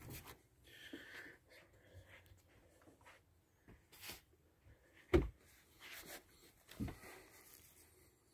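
Faint handling rustles and soft footsteps on the motorhome floor as the camera moves back, with two short dull thumps about a second and a half apart in the latter half.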